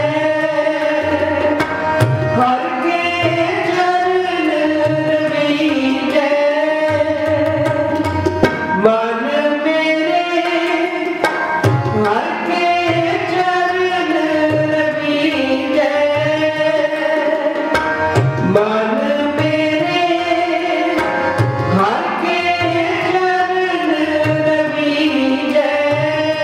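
Sikh kirtan: harmoniums hold the melody while a tabla keeps a steady rhythm with regular deep bass-drum strokes. A singer's voice glides between notes over them.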